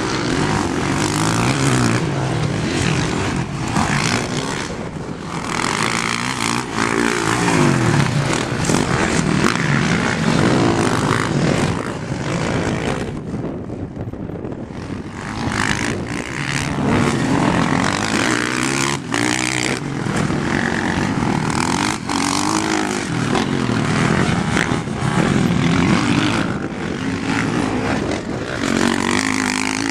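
Dirt bike engine being ridden, its pitch rising and falling again and again as the throttle opens and closes through the gears, easing off briefly about halfway through.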